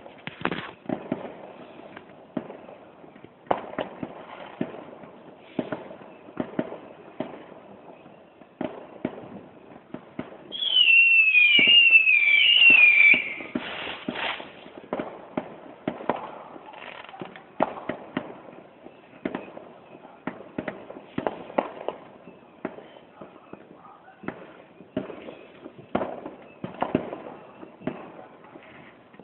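Distant fireworks bursting in a steady run of pops and bangs. About ten seconds in, a much louder shrill whistle falls in pitch four times over roughly three seconds.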